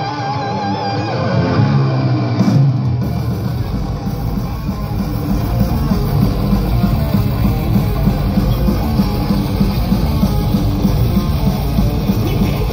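A thrash metal band playing live through a loud PA. A lone electric guitar plays wavering, sliding notes, then the drums and bass come in about three seconds in and the full band plays on.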